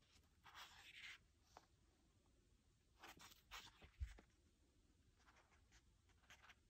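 Faint rustle and swish of a paperback manga volume's pages being turned by hand, twice, with a brief low thump about four seconds in.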